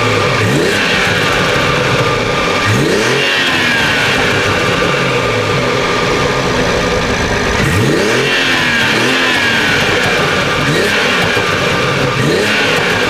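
2020 BMW M340i's B58 turbocharged inline-six pulling through several short bursts of acceleration, its pitch rising with each pull and dropping between them. Exhaust pops on lift-off are louder than any turbo flutter from the aftermarket intake.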